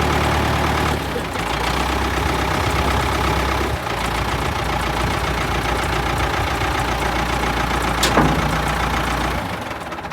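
Farm tractor engine idling steadily, its low drone shifting slightly a couple of times. One sharp click near the end, after which the engine sound drops away.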